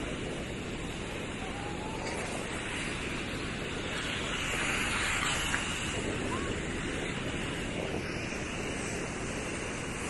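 Ocean surf breaking and washing up a sandy beach, a steady rush that swells louder about halfway through as a wave comes in.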